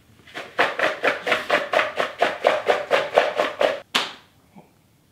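A small shaker shaken rapidly over a bowl of sliced apples, about five shakes a second for some three seconds, followed by a single sharp knock about four seconds in.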